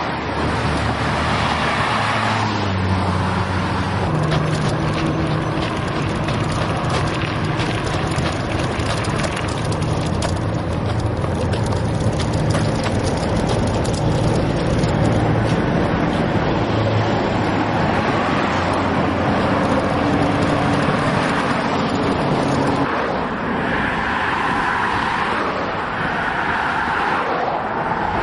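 A motor vehicle running steadily, with road noise. In the last few seconds traffic goes by.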